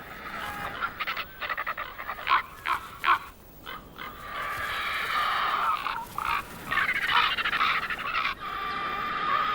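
Ravens and griffon vultures calling as they squabble over a carcass. There is a string of short calls in the first few seconds, then longer, drawn-out calls.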